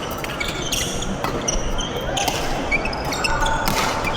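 Badminton rally: sharp racket strikes on the shuttlecock about once a second, with short high-pitched shoe squeaks on the court floor between them.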